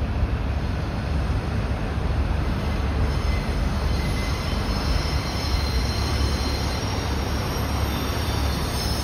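Freight train hauled by a DD55 diesel locomotive, moving on the rails with a steady low rumble. Thin, high wheel squeals come in about three seconds in and go on.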